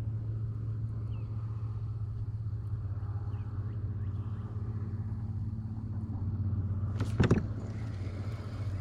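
A steady, even low motor hum, with one sharp knock or splash about seven seconds in.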